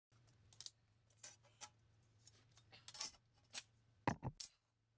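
Hand tools and plastic drain parts being handled and set down on a concrete floor: scattered light clicks and knocks, the loudest cluster about four seconds in, over a faint low hum.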